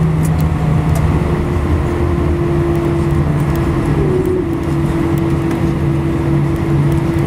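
Cabin noise aboard an Airbus A319 taxiing on the ground: a steady low hum from its CFM56 engines at idle, with a few light ticks and rattles.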